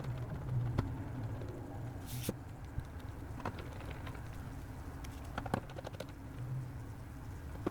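Scattered light clicks and taps of small parts and tools being handled on a laptop, with a brief rustle about two seconds in and a quick run of clicks near five and a half seconds.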